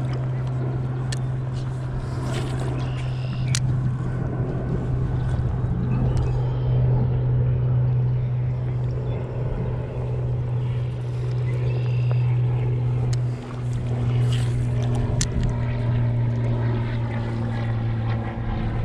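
Boat motor running steadily, a constant low hum with faint overtones and a few light ticks over it.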